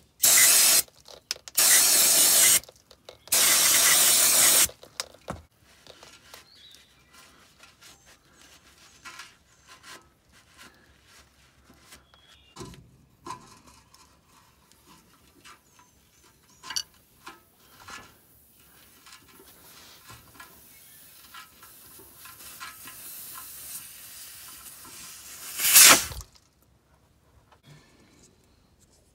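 Aerosol spray can hissing in three bursts as lubricant is sprayed onto a leaking quick-connect air coupler on a truck's air tank. Then faint wrench clicks and scrapes as the coupler is worked loose, and near the end a rising hiss that ends in one short, loud hiss.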